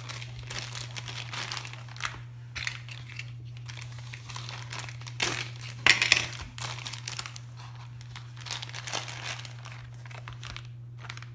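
Thin plastic courier mailer bag crinkling and rustling as it is pulled open by hand, in irregular handling noises that are loudest about six seconds in.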